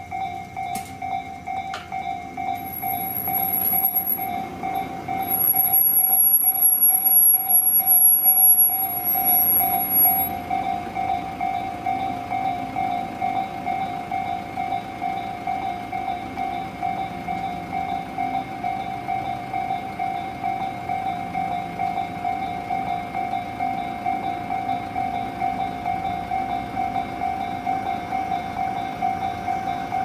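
Japanese level-crossing warning bell ringing its steady, rapidly repeated electronic clang throughout. From about three seconds in a train passes, louder for several seconds with a high thin squeal, and fades by about ten seconds in while the bell rings on.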